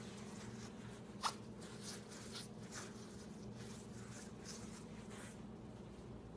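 Faint handling noises from a person moving about: one sharp click about a second in, then several soft brushing rustles, over a steady low hum.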